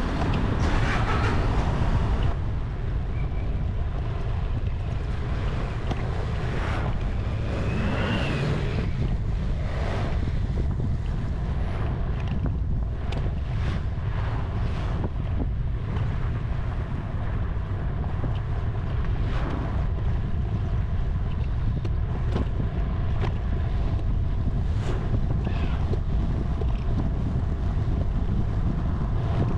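Wind buffeting the microphone of a camera on a moving bicycle: a steady low rumble, with scattered short clicks and rattles from the ride.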